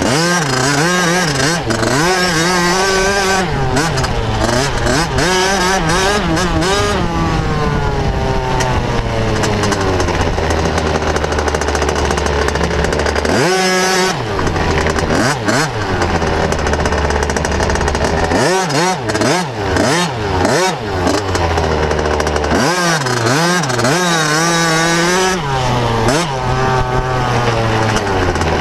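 Motocross bike engine revving up and down as it is ridden hard around the track, heard close from a camera mounted on the handlebars. The pitch climbs and falls repeatedly, and in the second half the throttle is chopped and blipped several times in quick succession.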